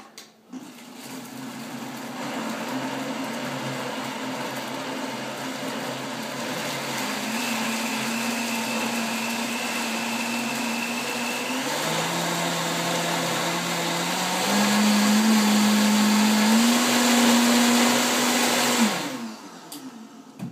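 Countertop blender motor puréeing a thick mix of steamed cauliflower and roasted red peppers: it starts about half a second in, steps up in speed twice and gets louder, then is switched off and winds down near the end.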